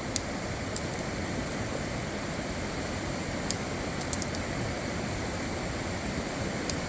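Steady rush of falling water from a waterfall, with a few faint light clicks.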